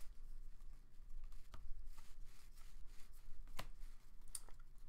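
A stack of trading cards handled and flipped through by hand: faint sliding and rustling of card stock, with a few sharp clicks.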